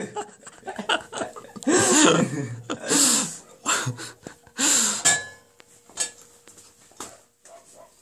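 Breathy vocal bursts from people close by, about three of them in the first five seconds, followed by a few small knocks.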